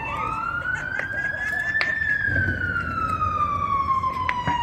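Emergency vehicle siren wailing: one slow rise and fall in pitch, with the next rise starting near the end. A few sharp cracks from the burning tractor are heard over it.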